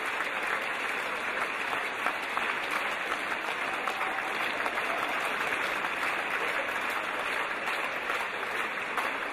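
Concert-hall audience applauding steadily, a dense even clapping.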